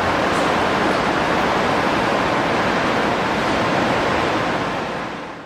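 Steady rushing background noise with no distinct events, fading out in the last half second.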